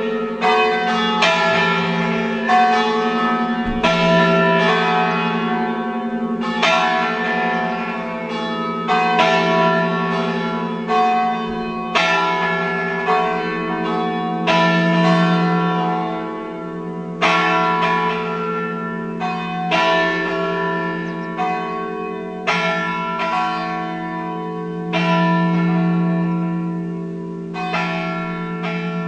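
A five-bell Ambrosian church peal tuned E, F-sharp, G-sharp, A and B, ringing with the bells swinging. Strikes follow one another about every half second to second and a half, each leaving a long, overlapping hum.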